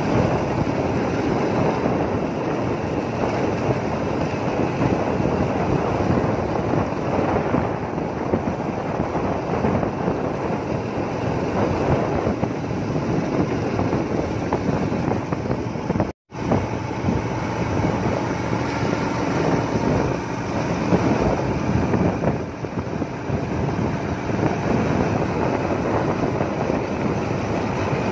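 Wind rushing over the microphone of a moving vehicle, mixed with steady engine and road noise. The sound cuts out completely for a moment about sixteen seconds in.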